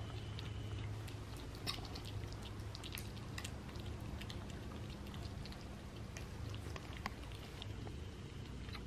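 Kittens eating shredded wet cat food: many soft, irregular chewing and smacking clicks over a low steady hum.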